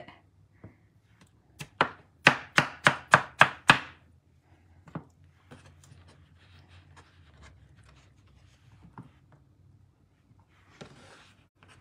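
A kitchen knife chops a peeled cantaloupe wedge into chunks on a bamboo cutting board. About two seconds in comes a quick run of about seven sharp cuts, each knocking on the board.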